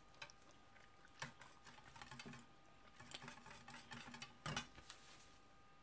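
Faint, quick ticking and scraping of a wire whisk against a stainless steel bowl as a liquid white chocolate mixture is whisked, with a louder knock near the end.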